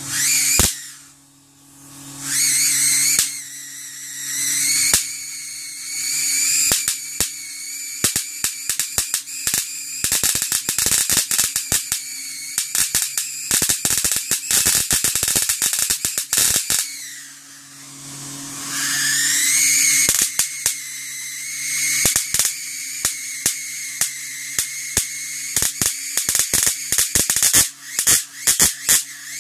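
High-voltage arcs from a Sony Wega CRT television's flyback output snapping rapidly across the picture tube's anode connection, over the set's steady high-pitched whine and a low hum. The whine rises in pitch as the set powers up. About two-thirds of the way through, the snapping and whine break off. The whine then climbs again and the rapid snapping resumes.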